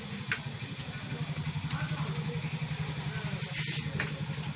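A steady low mechanical hum like an idling engine, with a fast even pulsing beat, growing louder about a second in, with a few light clicks over it.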